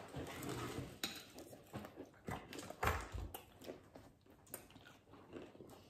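Crunching bites and chewing on crisp breaded deep-fried chicken: a run of short sharp crunches, loudest about three seconds in.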